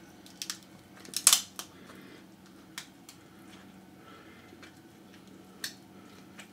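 King crab leg shell cracked and snapped apart by hand: a few sharp cracks, the loudest about a second in and one more near the end.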